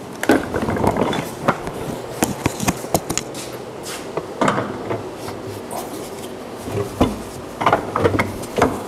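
Irregular knocks, taps and rubbing of hands handling wiring and parts against a wooden cabinet.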